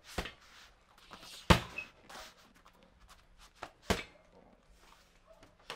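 Roundhouse kicks landing shin-first on a hanging heavy bag: a few sharp thuds, the loudest about a second and a half in and another about four seconds in.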